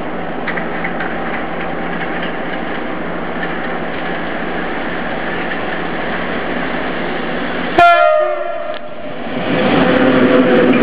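Rumble of an approaching train hauled by a PKP EP07 electric locomotive. About eight seconds in, the locomotive's horn gives one loud blast of about a second: the Rp1 "attention" warning signal. The passenger coaches then pass close by and the rolling noise grows louder.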